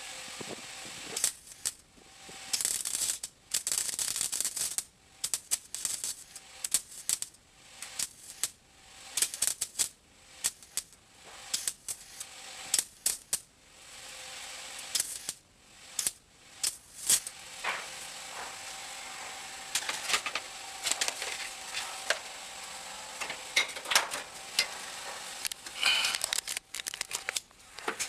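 Welder crackling in a run of short, irregular bursts, stopping and starting every second or so, as it tack-welds a patch plate into the sheet-metal dash of a 1957 Ford F100.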